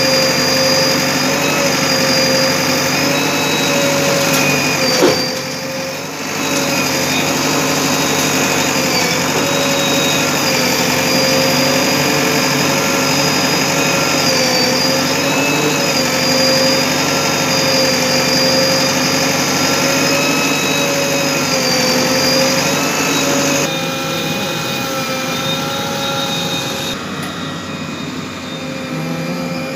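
JCB backhoe loader running steadily while its backhoe arm works mud, a constant whine that wavers a little in pitch as the load changes. A single sharp knock comes about five seconds in.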